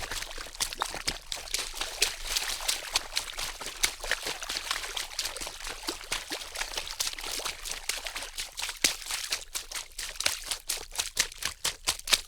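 Water splashing in a quick, irregular run of small splashes and drips. The splashes grow more separate and distinct over the last few seconds.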